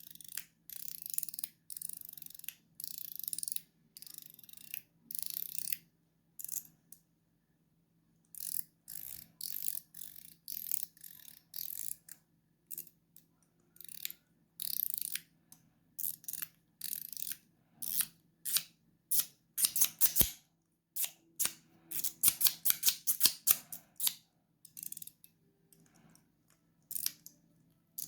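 9HAND Ding Ding mechanical fidget slider being slid back and forth, each stroke a short burst of clicking and rattling. The strokes come about once a second at first, stop for a couple of seconds, then return in quicker runs.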